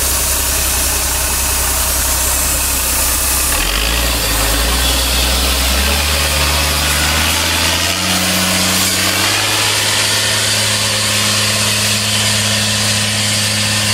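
Caterpillar 3116 turbo diesel of a homemade F-250 monster truck running as the truck drives past. Its note climbs in steps from about four seconds in, then holds steady.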